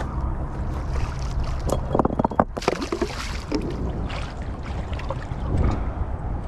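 A large fish hooked on a hand line thrashing and splashing at the water's surface against a rocky bank. The loudest splashing comes between about two and three and a half seconds in, with wind rumbling on the microphone.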